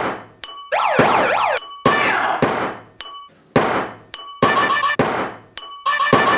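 Homemade kitchen percussion beat: a spoon striking a drinking glass, with a ringing clink after each hit, mixed with duller thunks. The hits repeat in a pattern of about one to two a second, and on some beats a swooping up-and-down siren-like tone sounds.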